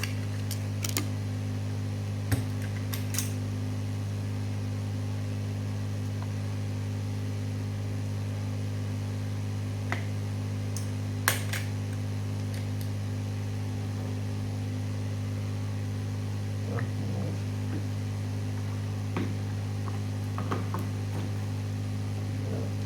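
Steady low electrical hum with a few short, sharp clicks and taps from small hardware being handled, as a processor is swapped on a desktop motherboard.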